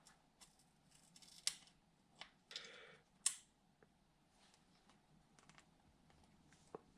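Small, sharp metallic clicks and a brief scrape from an AR-15 takedown pin and Allen keys being pressed and worked into the lower receiver against its detent. There are a few scattered clicks, the loudest about one and a half and three seconds in.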